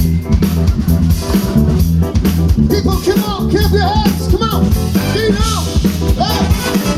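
Live band music at a loud level: drum kit and bass playing a steady groove with guitar. From about two and a half seconds in, a lead line of short notes that bend in pitch comes in over it.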